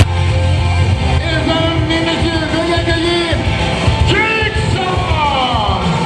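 Music with a sung vocal over a strong, steady bass line.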